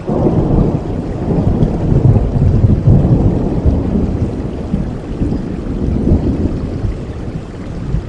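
Rain falling, with a long roll of thunder that swells right at the start, is loudest a couple of seconds in, and fades away over the next several seconds.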